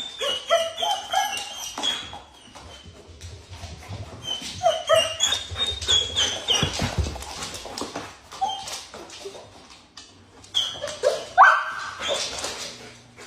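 Dog whining and yipping in many short, high calls, with a louder rising whine about eleven seconds in.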